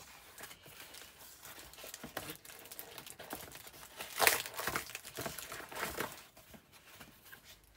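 Bubble wrap and cardboard packaging crinkling and rustling as a parcel is unpacked, in irregular crackles, the loudest a little past four seconds in.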